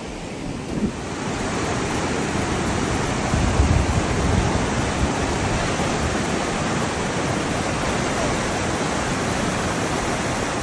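Steady rush of flowing river water, an even hiss that grows a little louder about a second in and then holds level.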